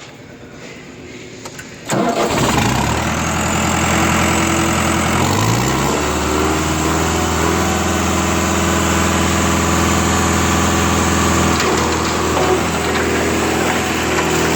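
Olin 575 trailer concrete pump's engine starting about two seconds in, picking up speed around five to six seconds in, then running steadily at a fast idle.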